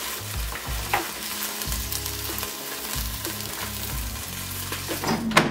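Hot, part-cooked fries sizzling in a pulled-out air fryer basket, with a few light clicks and knocks as the basket is handled. Background music with a low bass line runs underneath.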